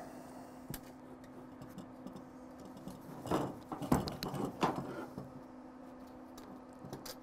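Quiet handling sounds: a few light clicks and taps as the blade of a pneumatic air saw is set against the rusty window-channel sheet metal, mostly about three to five seconds in, over a faint steady hum.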